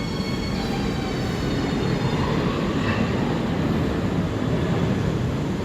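S-Bahn commuter train running along the station platform with a steady rumble of wheels on rail, its high whining tones fading out within the first two seconds.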